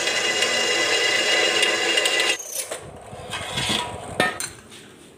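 Bench drill press boring through rusty steel angle iron: a steady grinding with a high whine, which stops about two and a half seconds in. A few knocks follow, then a sharp metal clank about four seconds in as the angle iron is lifted off the drill table.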